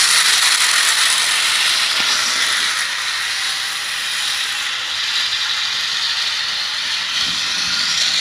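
Battery-operated toy train running on its plastic track: a loud, steady whirring rattle of the small motor and gears, with the wheels clattering along the track.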